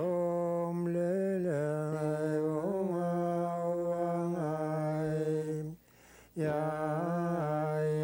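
Inuit ajaaja song sung by a woman alone, without instruments: long held notes, the pitch stepping up and down a little between them, with a short breath pause about six seconds in.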